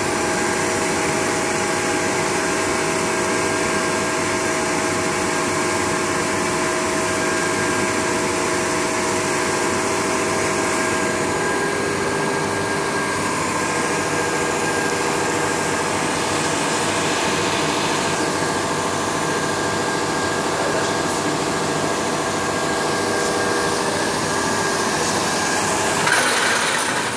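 Heat-shrink packaging machine running steadily: an even blower-like mechanical noise with several held hums as film-wrapped products pass through on its roller conveyor, with a short louder burst near the end.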